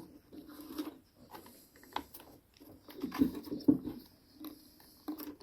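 Electrical wires being handled and pushed into a clamp-type wire connector: soft scratches and small clicks, busiest about three seconds in.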